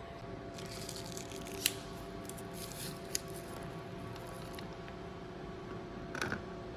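Crinkling and rustling of a wrapper, with two sharp clicks and a short rustle near the end, over a steady hum.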